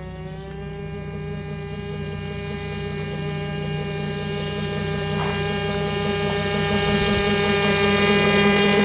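O.S. .25 two-stroke glow engine of a radio-controlled airboat running with a steady high-pitched buzz, its pitch rising slightly at first and growing steadily louder as the boat comes closer.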